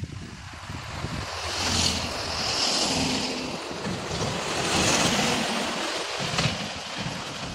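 A car and then a loaded container truck pass close by at highway speed. Rushing tyre and wind noise swells to a peak about two seconds in and again about five seconds in, over a low engine drone.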